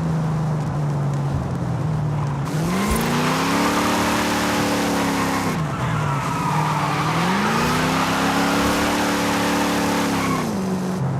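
1968 Dodge Dart Hemi Super Stock's 426 Hemi V8 idling, then revved twice, each time held up for a few seconds before falling back to idle.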